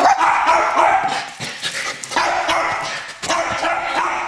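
Dogs barking repeatedly, with a short break about three seconds in.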